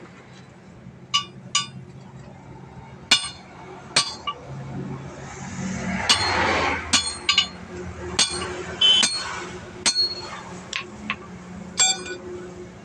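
Hammer striking a steel tyre lever to force a tight truck tyre's bead onto the rim: about a dozen sharp metallic clinks, each ringing briefly, at uneven intervals. A broad rushing noise swells and fades about six seconds in.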